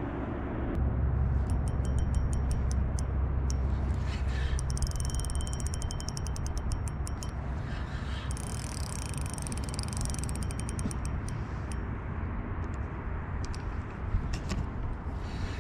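Spinning reel being cranked in spells during a lift-and-drop retrieve, a fast fine ticking and whirring from the reel's gears and rotor, over a steady low rumble.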